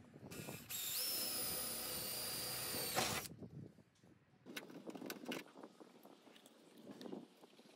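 Electric drill boring a hole through the sheet-metal body pillar of a Sprinter van: a steady whine for about two and a half seconds that cuts off suddenly about three seconds in. A few light clicks and rattles follow.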